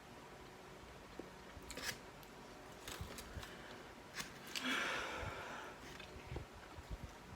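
Close-up eating sounds of someone eating chicken wings: faint chewing with a few sharp clicks and smacks. A short hissing rustle about five seconds in.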